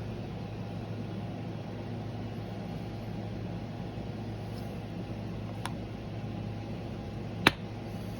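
Steady background hum and hiss with a low electrical tone, broken by a faint tick about five and a half seconds in and one sharp click near the end.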